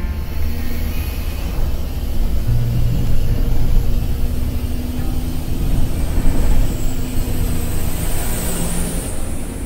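Inside a moving intercity bus: a steady low rumble of engine and road noise with an engine hum underneath.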